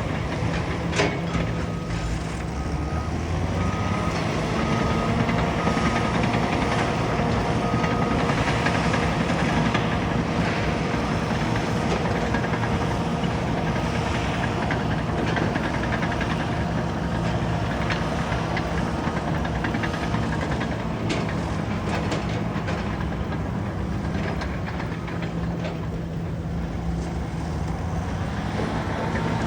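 Caterpillar bulldozer's diesel engine running steadily under work, with a few clanks, and a reversing alarm beeping for a few seconds near the start. The engine note rises near the end.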